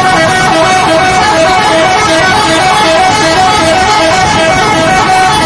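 Indonesian bus 'telolet' musical horn playing a loud melody, a quick string of short notes repeating over and over without a break.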